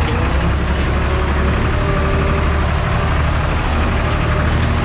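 Diesel tractor engine running steadily under load while ploughing, a deep drone with a faint whine, heard from inside the cab.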